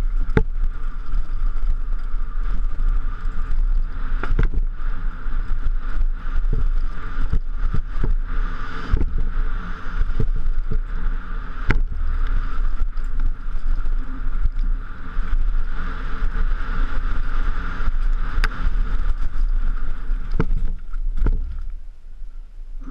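Mountain bike descending a bumpy dirt trail, heard from a helmet camera: heavy wind rumble, frequent rattling knocks from the bike over bumps, and a steady whirring buzz.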